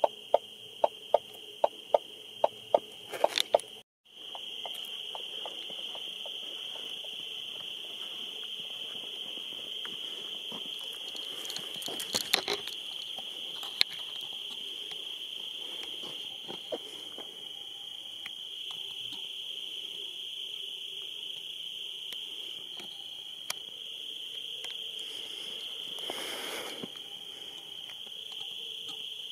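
Night insect chorus: a steady, unbroken high trill held throughout. A run of regular ticks, about two or three a second, sounds over the first few seconds, with a few scattered clicks later.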